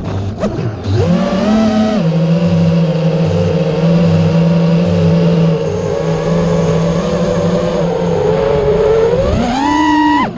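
A motor running at a steady pitch that rises briefly about a second in and rises again near the end, with a low pulse repeating underneath.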